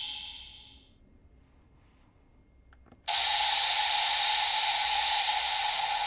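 Bandai CSM V Buckle toy belt with the Abyss Advent Deck: a short press of its line button clicks about three seconds in, and the belt's speaker at once plays the Abyss explosion sound effect, a loud, lasting rush. In the first second an earlier sound from the belt fades out.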